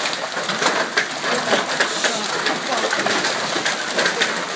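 Golf-ball-size hail pelting down in a heavy storm: a dense, steady clatter of hailstones striking the ground and parked cars over the hiss of rain.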